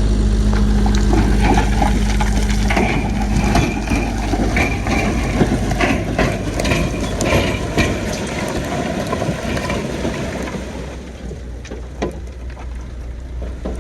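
Heavy earthmoving machinery at work: a diesel engine runs steadily, then about three seconds in a dense crunching and clanking of rock and steel takes over, easing off in the last few seconds.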